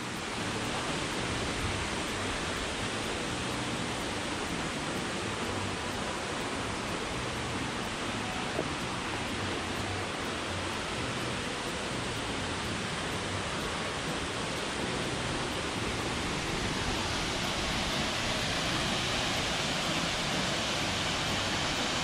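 Steady rush of a tall waterfall plunging into its pool, a little louder and brighter near the end.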